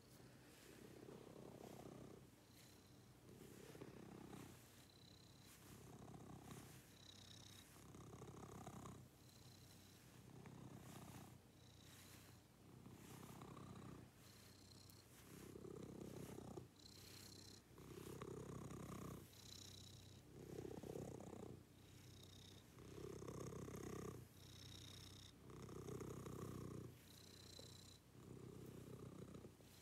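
Domestic cat purring softly, the purr swelling and fading with each breath in slow, regular pulses.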